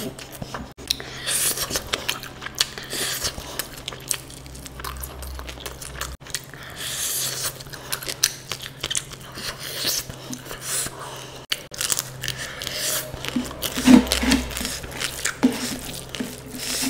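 Close-miked person chewing and biting food, with crunches and wet mouth sounds in irregular bursts.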